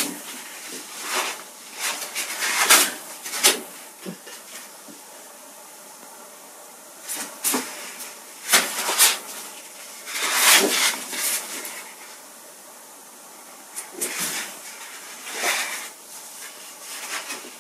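Sheets of paper rustling and being shuffled as a stack of children's school drawings is leafed through, in irregular short bursts of handling noise.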